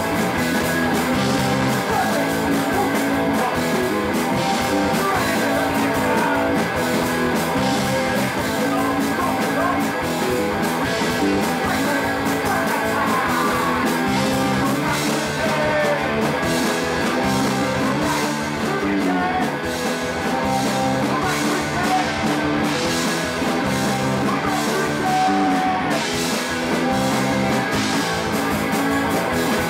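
Punk rock band playing live: electric guitar and drum kit driving a steady rhythm, with a singer's voice over them.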